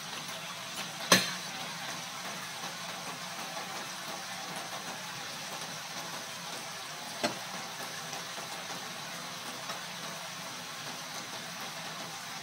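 Chicken feet sizzling steadily in a bubbling soy-sauce and brown-sugar adobo glaze in a pan. A sharp knock comes about a second in, and a fainter one about seven seconds in.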